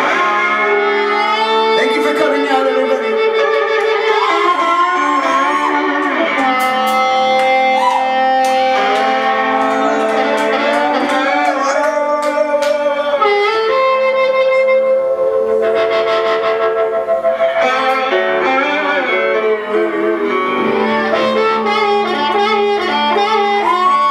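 Harmonica cupped against a microphone, playing held notes with bends, over electric guitar backing in a live band.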